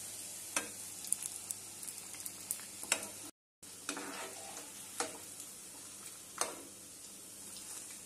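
Battered cauliflower frying in hot oil with a steady sizzle, while a metal slotted spoon scoops the pieces out, clinking sharply a handful of times against the pan and plate. The sound cuts out briefly about three seconds in.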